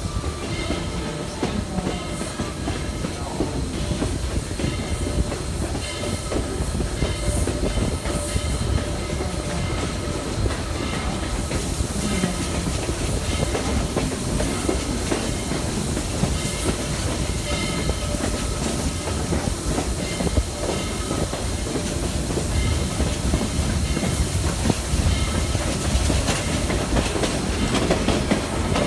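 Train rolling along the track: a steady rumble with the clickety-clack of wheels over rail joints.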